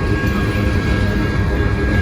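Loaded grain train rolling past close by: a steady, loud rumble of wheels on rail with a thin steady whine above it.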